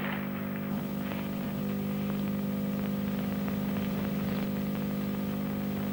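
A steady low hum with a thin hiss and scattered faint crackles.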